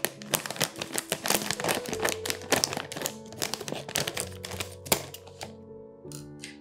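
Scissors snipping through a thin plastic bag of dried noodles: a quick run of many crisp snips and plastic crinkles, thinning out about five seconds in, over soft background music.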